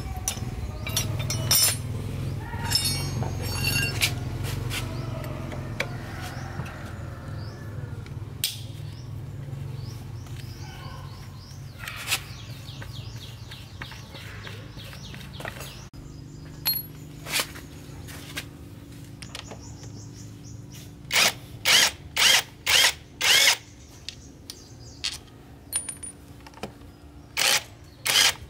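Metal tools and motorcycle parts clinking, over a low hum for the first several seconds. Later comes a quick run of about five short bursts from a cordless power tool driving bolts, with a few more clinks around them.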